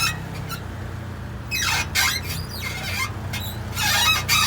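Car suspension squeaking: about three high-pitched squeaks that bend in pitch, over a low steady hum. The kind of squeak that nine times out of ten comes from a dry, worn lower ball joint whose rubber boot has split and let the grease out, leaving metal rubbing on metal.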